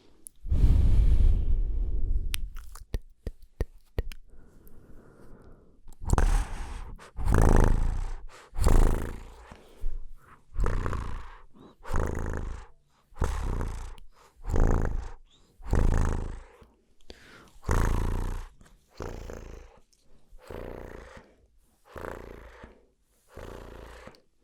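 Close-miked mouth sounds: a run of small wet clicks, then a long series of breathy mouth noises right against the microphone, about one a second, each with a low rumble of air hitting the mic.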